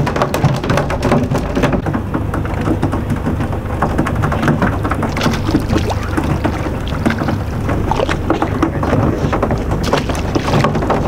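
Charter fishing boat at sea: a steady low engine hum under constant splashing and crackling water noise, with many small clicks.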